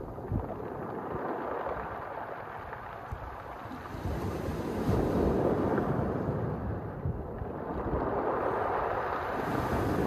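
Mediterranean sea waves washing in and out over a pebble beach, a steady surf that swells about halfway through and again near the end.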